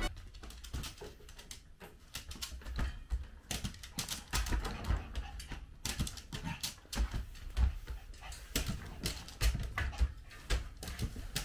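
Toy poodle's claws clicking and tapping on a hard floor and on the plastic grid of its toilet tray as it moves about: an irregular run of sharp ticks, several a second.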